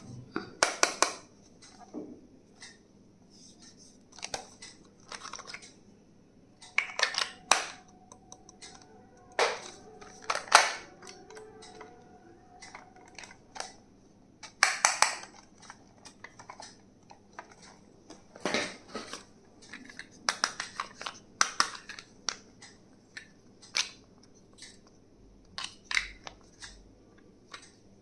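Stationery items and their packaging handled and unboxed by hand: irregular sharp clicks, taps and short crinkling rustles, with a faint steady tone for several seconds in the middle.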